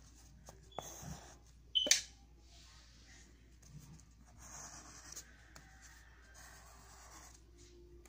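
Pencil scratching and rubbing over notebook paper in short strokes, with the paper rustling. One sharp, louder click comes about two seconds in.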